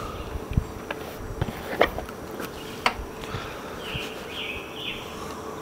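Steady buzzing of a flying insect, with a few soft clicks scattered through it.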